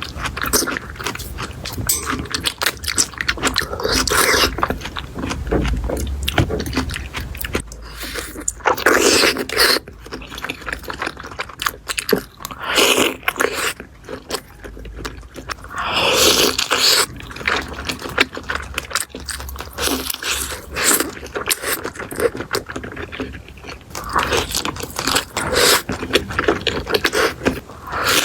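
Close-miked eating: crunchy bites and chewing in a rapid run of small clicks, with scraping sounds and louder crunchy bursts every few seconds.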